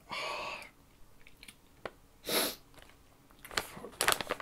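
A man breathing out hard through an open mouth to cool the burn of very spicy pepper snacks, with quiet mouth clicks, then a short sharp breath about two seconds in. A plastic snack bag starts to crinkle near the end.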